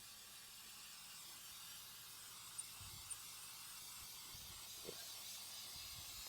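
Aerosol can of spray-on rubber sealant spraying, a faint steady hiss, with two small ticks about two and a half and three seconds in.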